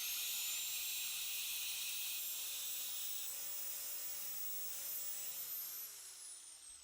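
A steady hiss with a faint high whine in it. The whine falls in pitch from about five seconds in, and the hiss eases off toward the end.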